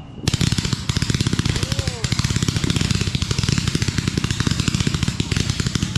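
Consumer firework barrage going off about a quarter second in, a rapid, unbroken string of crackling pops.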